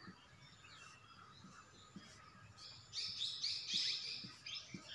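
Whiteboard marker squeaking in short high chirps as the strokes of a battery symbol are drawn, with a few soft taps of the marker tip. The squeaks come in a quick cluster from about three seconds in.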